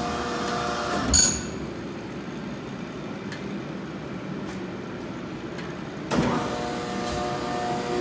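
A loud metallic clank with a brief ringing about a second in, as the horizontal baler's steel door and latch are worked. It sounds over a steady machine hum that drops away after the clank and comes back with a second knock about six seconds in.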